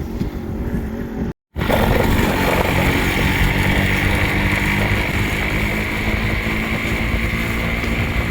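Yamaha RX135 two-stroke single-cylinder motorcycle engine running steadily, freshly rebuilt and not yet run in. The sound drops out briefly about a second and a half in, then carries on evenly.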